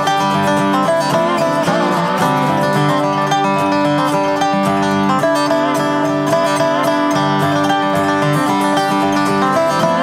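Acoustic guitar and dobro playing an instrumental tune together, with plucked notes under a sliding lead that wavers and bends in pitch about two seconds in.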